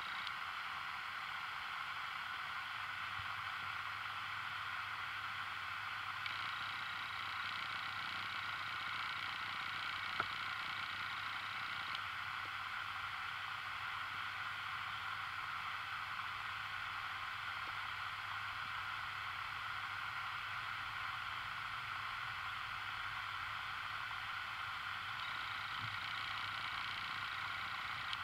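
Steady, even hiss of underwater ambience recorded by a submerged camera, with a faint low hum underneath and one brief click about ten seconds in.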